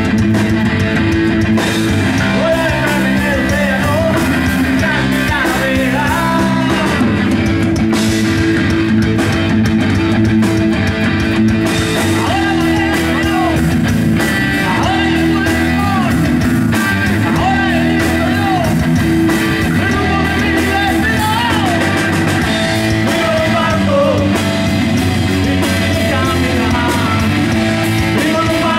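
A rock trio playing live and loud through amplifiers: electric guitar, electric bass and drum kit, with the guitar line full of bent notes.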